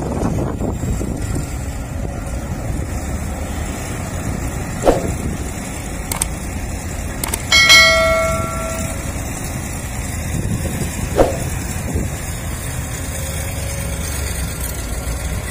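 Sumitomo hydraulic excavator's diesel engine running steadily as it digs and loads soil into a dump truck, with a ringing metallic clang about eight seconds in and two short knocks, one before and one after.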